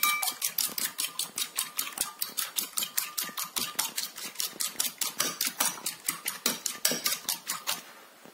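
A metal fork beating a raw egg in a ceramic bowl, the tines tapping against the bowl in a quick steady rhythm of about six strokes a second.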